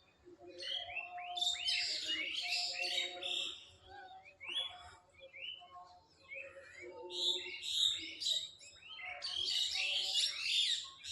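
Several birds chirping and singing together in a morning chorus, with quick high chirps and short gliding notes. There are lower, held notes underneath. The chorus thins out for a moment in the middle, then picks up again.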